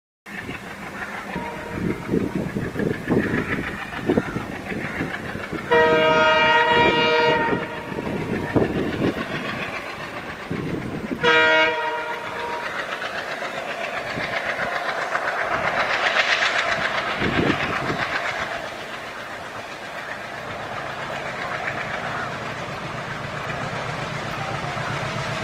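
Fast passenger train passing with rapid clickety-clack of wheels over rail joints, its locomotive horn giving a long blast about six seconds in and a shorter one just before halfway. After that, a steady rumble of an approaching diesel-hauled passenger train.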